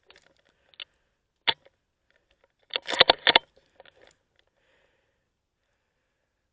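A series of short, sharp clicks and rattles: one crisp click about a second and a half in, then a quick cluster of louder clicks about three seconds in, and a few faint ones after.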